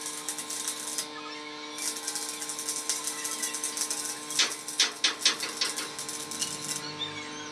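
Stick arc welding on steel plate: the arc crackles and sizzles steadily. It breaks off for under a second twice, about a second in and near the end, and gives several sharp pops of spatter in the second half. A steady hum runs underneath.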